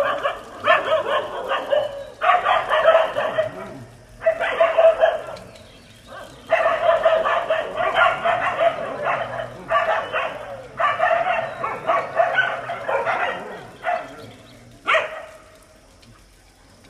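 Loud animal calls in repeated bursts of one to two seconds each, separated by short gaps, with a last short call near the end.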